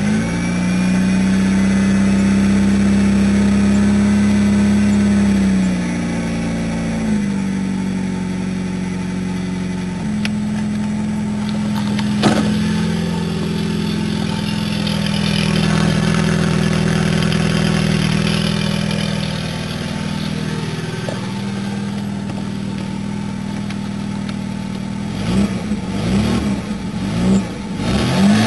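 Fiat Uno petrol engine idling just after a cold start, its fast idle stepping down to a lower, steady idle after about six seconds. Near the end the engine is revved a few times, the pitch rising and falling unevenly.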